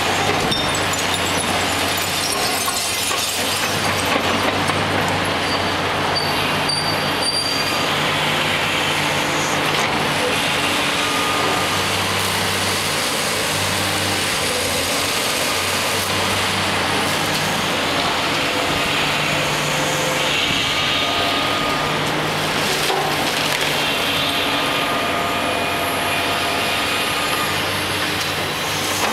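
Diesel engine of a long-reach demolition excavator working under load, its pitch stepping up and down as the hydraulics work, with a thin high whine at times. Over it runs a constant rough noise of concrete and masonry crumbling and debris falling as the grapple tears the building apart.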